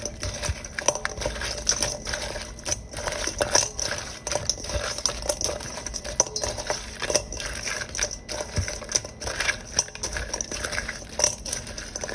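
Raw seasoned crab pieces being mixed by hand in a stainless steel bowl: shells clatter and scrape against the steel in a busy run of irregular clicks.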